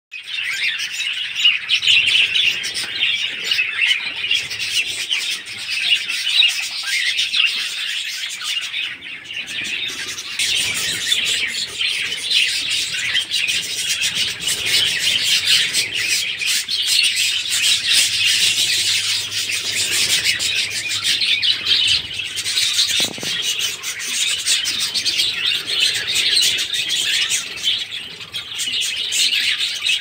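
A flock of small parrots, mostly budgerigars along with cockatiels and lovebirds, chirping and chattering continuously and overlapping.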